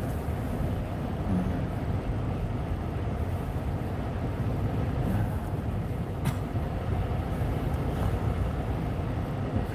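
Steady low rumble of a car driving slowly on a snow-covered street, heard from inside the cabin: engine and tyre noise. There is one sharp click about six seconds in.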